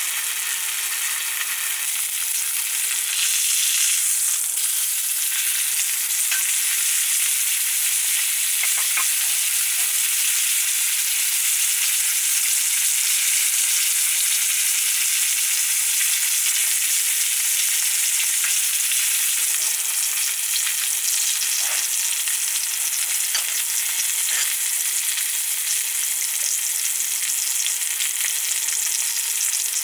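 Food frying in a pan: a steady sizzle with scattered small crackles throughout.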